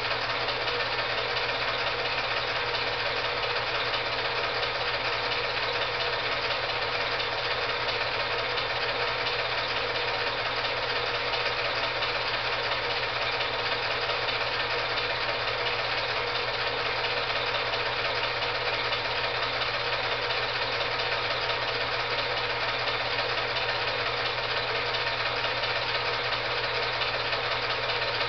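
Film projector running: a steady mechanical whir and fast clatter with a low hum underneath, unchanging throughout.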